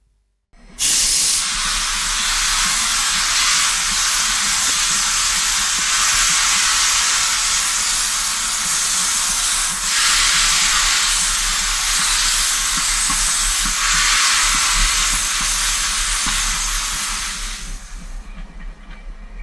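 Steam locomotive letting off steam: a loud, steady hiss that starts suddenly about a second in and fades away near the end, with a faint low rumble underneath.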